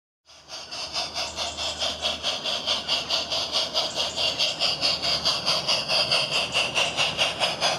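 Electronic steam-locomotive sound from a MyLocoSound soundcard in a battery-powered garden-railway model of a Black Hawthorn 0-4-0 saddle tank. It chuffs steadily at about five beats a second as the loco pulls a train, starting just after a brief silence.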